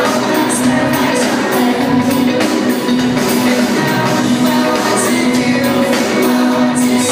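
Live pop-rock band playing loudly with singing over a steady beat, heard through a concert PA system in a large hall from within the audience.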